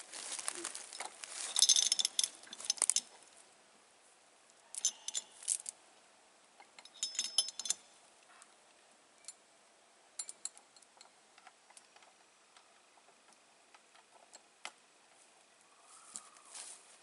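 Steel chain clinking and rattling in several short bursts of jangling links, handled at a bullock yoke, with quieter stretches and odd single clinks between.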